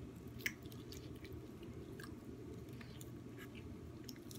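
A person chewing food close to the microphone, with small wet mouth clicks and a sharper click about half a second in.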